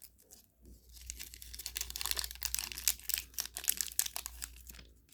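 Packaging being handled: rapid crinkling and crackling, busiest in the middle of the stretch, as the lighter is taken out of its wrapping.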